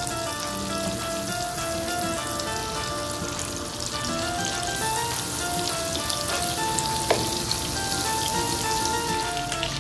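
Butter melting and sizzling in a nonstick frying pan, the sizzle getting louder from about halfway through as the butter foams. A quiet instrumental melody plays underneath.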